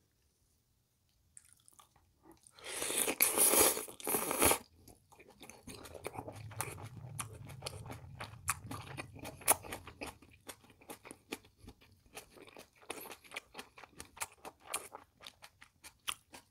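Close-miked chewing of a mouthful of tofu and kimchi: a loud rush of noise lasting about two seconds, then many quick wet mouth clicks and squelches while chewing.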